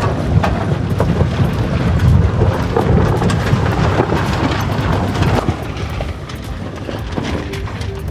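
Wind buffeting the microphone on a sailboat under way: a heavy low rumble with scattered crackles, easing off about five and a half seconds in.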